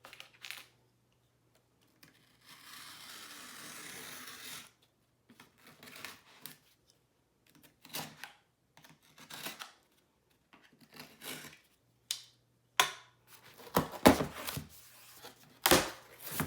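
A cardboard box being cut open: a steady scraping of a blade through packing tape or seal for about two seconds, followed by scattered clicks, taps and handling of cardboard, with several sharper knocks near the end.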